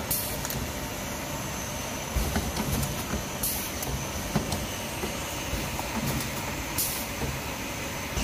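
Automatic rotary perfume filling and crimping machine running, a steady mechanical clatter with occasional low knocks. A short sharp hiss of air comes about every three and a half seconds as the stations cycle.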